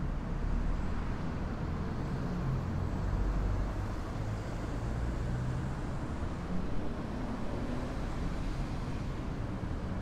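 Distant road traffic: a steady low rumble of vehicles, with a faint high hiss that swells and fades in the middle.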